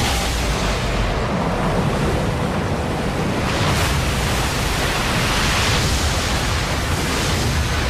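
Loud rushing of water, a steady roar that starts suddenly and swells again about four seconds in.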